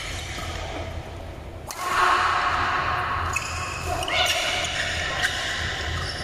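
Badminton rally in an indoor hall: several sharp racket strikes on the shuttlecock, over a steady low hum and players' voices.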